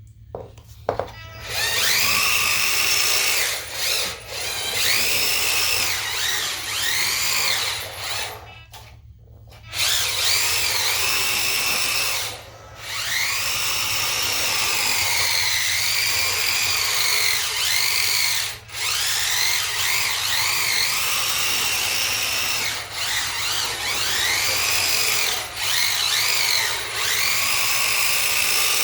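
Small electric drive motor of a 1/18-scale RC drift car whining, its pitch rising and falling as the throttle is worked. It stops briefly a few times.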